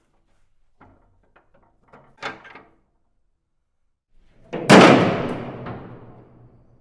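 Heavy iron door: a few small knocks and clicks, then a loud slam about four and a half seconds in that rings out and fades over about two seconds.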